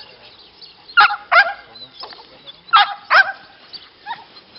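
A dog barking in quick pairs: two barks about a second in, two more about two seconds later, then weaker ones.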